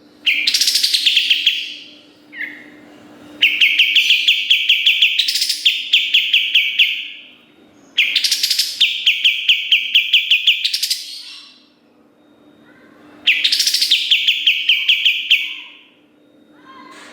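Kapas tembak singing four bursts of rapid repeated notes, about five a second. Each burst opens with a quick rising sweep. A faint steady hum lies underneath.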